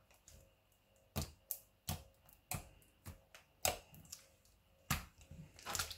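Homemade glue slime being pressed and stretched by hand on a table, giving off a string of sharp, irregular clicks and pops as air pockets burst and the slime pulls away from the fingers and tabletop.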